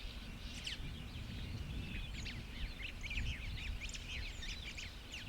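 Many small birds chirping and twittering in a busy chorus of quick, high calls that overlap, over a low steady rumble.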